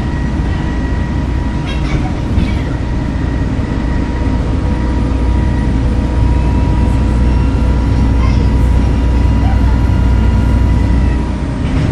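Volvo B7TL bus's six-cylinder turbo-diesel engine running under way, a low steady drone with a loud, steady turbocharger whistle over it. The whistle falls away near the end.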